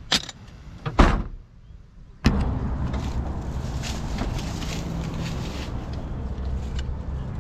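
A car door slams shut about a second in, after a couple of light clicks. A steady low mechanical rumble then starts abruptly and carries on.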